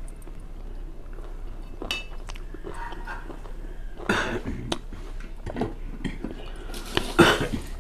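Someone eating rice and pickle by hand from a ceramic plate: small clicks and clinks against the plate, with mouth and chewing noises. There are two louder noisy bursts, one about four seconds in and a stronger one near the end.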